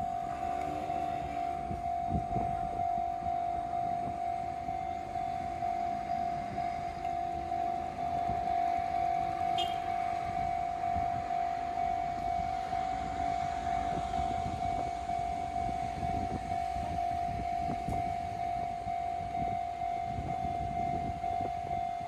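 Japanese railway level-crossing alarm on the Enoden line sounding continuously, a repeating electronic bell tone, warning that a train is approaching. Faint outdoor street and crowd noise lies under it.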